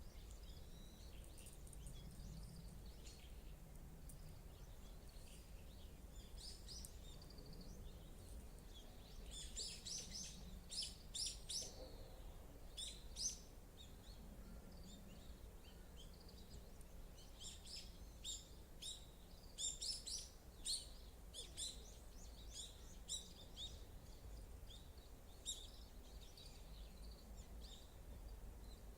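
Small birds chirping and twittering in quick runs of short, high calls, busiest about ten seconds in and again around twenty seconds, over a faint steady low rumble.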